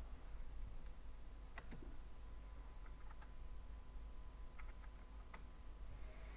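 A few faint, scattered computer keyboard keystrokes and clicks over a steady low hum.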